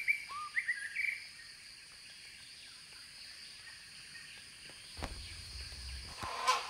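Tropical forest ambience: a steady high insect drone, with a few short whistled bird chirps in the first second and a brief louder call near the end.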